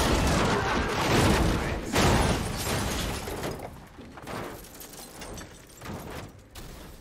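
A crash with glass shattering. There is a loud hit at the start and another about two seconds in, then smaller clatters that die away.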